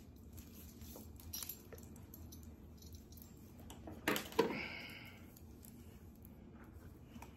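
Faint handling of sewing materials (elastic and tape measure): soft rustling and small clicks, with one short louder rustle about four seconds in.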